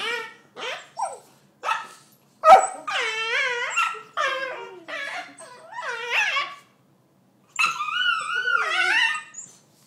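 Puppies yipping and barking: a few short yips, one sharp bark about two and a half seconds in, then four long whining cries that waver up and down in pitch, the last near the end.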